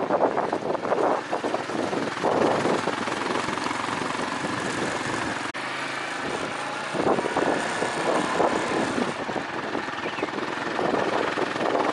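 A vehicle engine running under load on a rough off-road track, with a rough, pulsing note that rises and falls, and a momentary break about five and a half seconds in.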